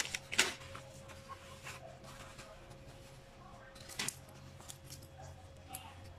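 A few faint clicks and knocks, a sharper one about half a second in and another about four seconds in, over a faint steady hum.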